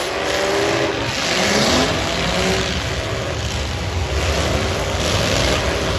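Several demolition-derby cars' eight-cylinder engines running and revving over a heavy rumble, their pitch rising in the first couple of seconds.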